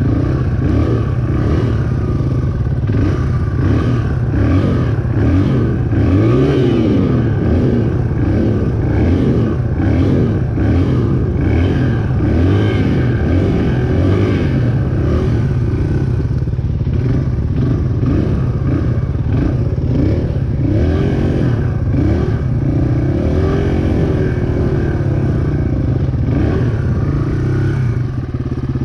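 Dirt bike engine revved up and down over and over in short bursts, over a steady engine drone, as the bike is worked against a stump on the trail.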